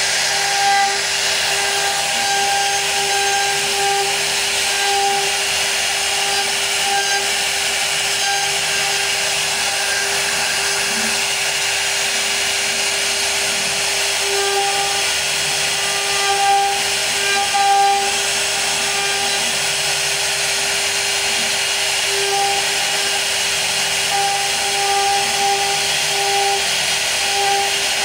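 CNC router spindle running steadily while cutting wood: a constant whine over a noisy cutting hiss, with small swells in loudness now and then.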